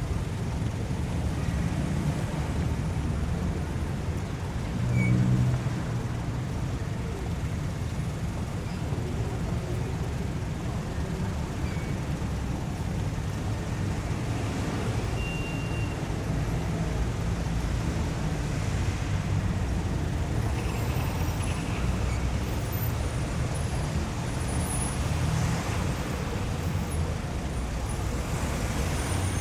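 City street traffic: a steady low rumble of cars going by, with one louder low swell about five seconds in.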